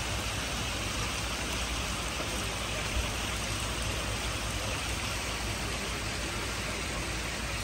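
Water cascading steadily from a row of wall-mounted return outlets into a koi pond: a continuous splashing rush from the pond's high water turnover.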